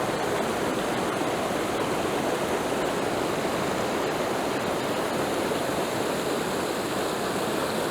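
Steady rush of a small waterfall and fast-running river water close by, an even, unbroken noise.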